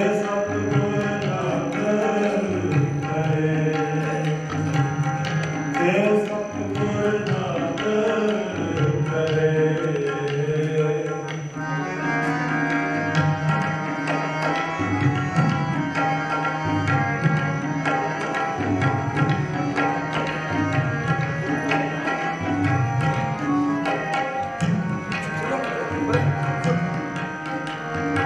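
Sikh kirtan: a male voice singing to harmonium and tabla. After about eleven seconds the singing drops away and the harmonium's held chords and tabla strokes play on.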